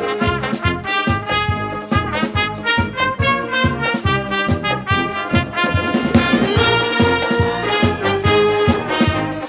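Music led by brass instruments such as trumpets and trombones, playing over a steady drum beat.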